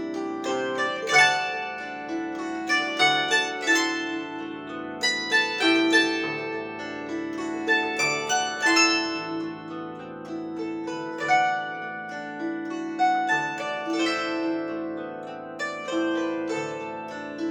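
A plucked string instrument played solo, a flowing melody over ringing bass notes.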